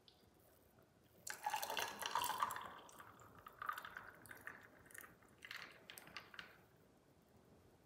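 Orange juice poured in a stream over ice cubes and grenadine syrup in a tall glass, splashing as the glass fills. The pour starts about a second in, is loudest at first, and trails off unevenly before the end.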